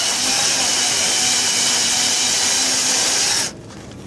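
Milwaukee M12 2429 compact cordless bandsaw running and cutting metal with a steady high whine, then stopping abruptly about three and a half seconds in.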